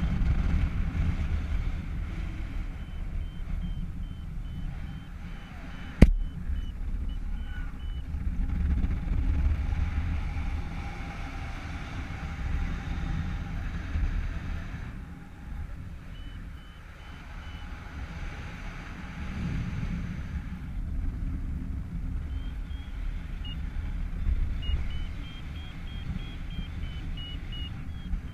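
Wind buffeting a GoPro microphone in paraglider flight, a low rumble that rises and falls. Through it, stretches of short high-pitched beeps from the harness-mounted flight variometer, its signal for climbing in lift. One sharp knock about six seconds in.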